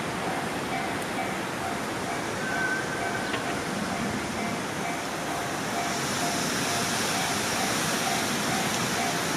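Japanese level crossing warning bell ringing in a steady repeating beat over a constant rushing noise. About six seconds in a high hiss rises as a train approaches the crossing.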